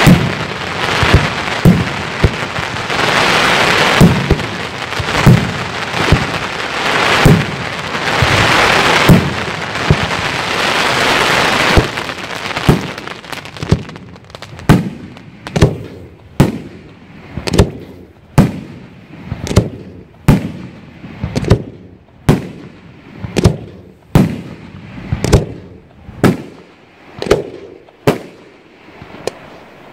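Aerial firework shells bursting: for about the first twelve seconds a dense, continuous crackle with booms mixed in, then a steady run of sharp single bangs, about one a second, each trailing off in an echo.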